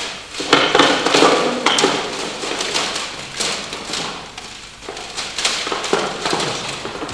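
Plastic CD cases clattering and knocking together as they are rummaged through in a hurried search, with an irregular run of sharp clicks and knocks.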